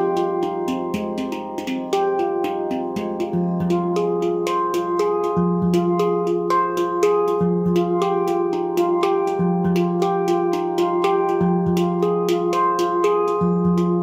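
Nimo Sounds handpan in F low pygmy tuning, played with the hands: a quick, continuous run of struck tone fields that ring on, over a deep bass note struck about every two seconds.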